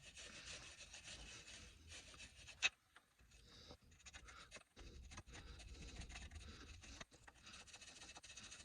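Faint, irregular scraping and rubbing, with a single sharp click about two and a half seconds in.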